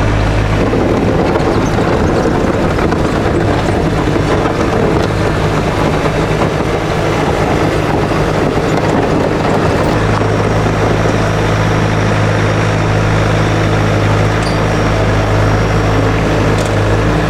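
Skid steer's diesel engine running steadily under load, loud and close, with its low hum shifting slightly about a second in and again about halfway through as the machine moves.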